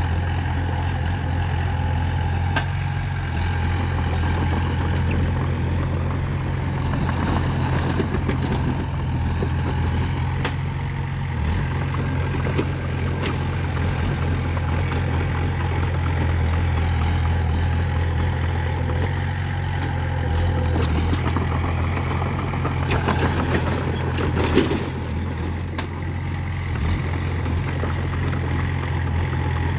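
Diesel engine of heavy earthmoving equipment running steadily with a low drone, with a few scattered knocks, the sharpest about 24 seconds in.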